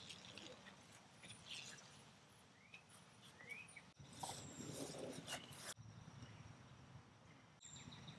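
Faint sounds of hand gardening: soft scraping and rustling of soil worked with a trowel and gloved hands, louder for a stretch a little after the middle. A couple of short rising bird chirps come a little before that, and the background changes abruptly a few times.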